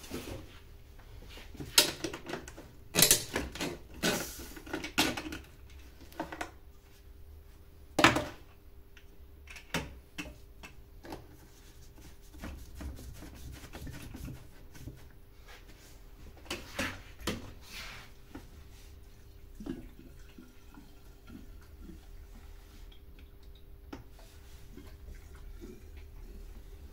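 Handling noises from a new chainsaw and its parts: a scattered series of sharp clicks, knocks and rattles of plastic and metal, busiest in the first eight seconds with the loudest knock about eight seconds in and another cluster a little past halfway, over a faint steady hum.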